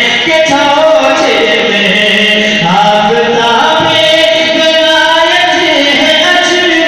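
A man's voice singing a manqabat, a devotional song in praise of a saint, with long held notes that glide from pitch to pitch.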